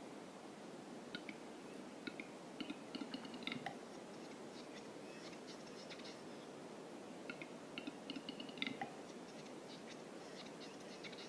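Western capercaillie cock singing its lek display song twice: a run of dry clicks that speeds up into a loud pop, then a high, scraping whetting phrase lasting a second or two.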